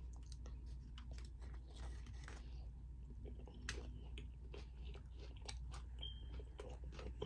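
Faint chewing of a mouthful of taco, with many small scattered mouth clicks.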